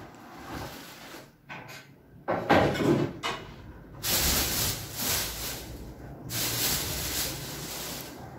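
Handling noise close to the microphone: rustling and rubbing as cat hair is pulled off a rubber grooming glove and rolled into a ball in the hand. A few short rustles and knocks come first, the loudest about two and a half seconds in, then longer stretches of hissy rubbing.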